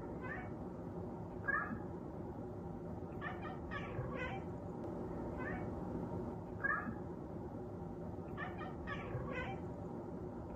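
Persian cat meowing repeatedly in short, high calls, about ten of them, some coming in quick pairs or threes.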